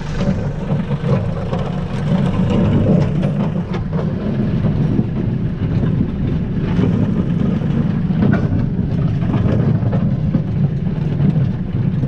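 Compact tractor engine running steadily while the tractor pulls a rear blade through snow and gravel, with a few light knocks along the way.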